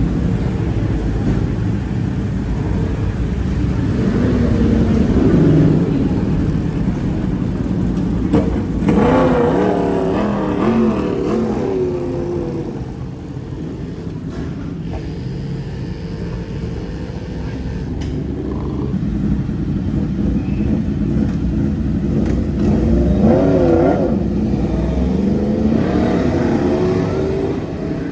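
2020 Yamaha YZF-R1's crossplane inline-four, heard onboard at speed, revving up and backing off several times, its pitch rising and falling with throttle and gear changes. It eases off for a few seconds in the middle, and heavy wind rush runs under it.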